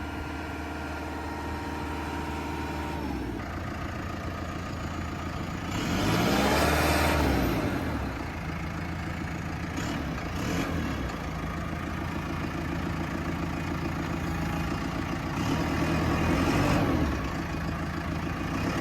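2014 JCB 3C backhoe loader's diesel engine running steadily, then revving up twice, about six seconds in and again about fifteen seconds in, the pitch sweeping up and back down each time.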